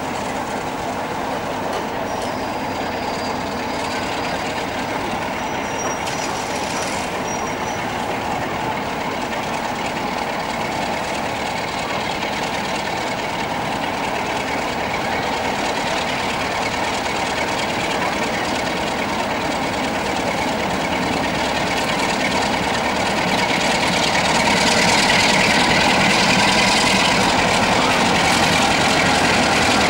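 Diesel locomotive engine running as it hauls a train slowly toward the listener, growing louder near the end as it draws close.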